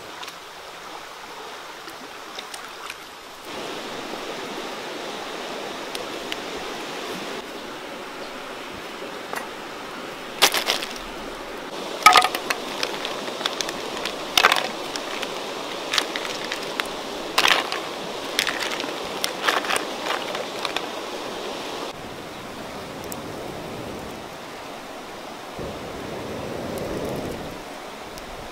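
River snails boiling in water in a clay pot over a wood fire: a steady bubbling, rushing hiss. From about ten seconds in to about twenty-two seconds, a run of sharp clicks and cracks stands out as the loudest sounds.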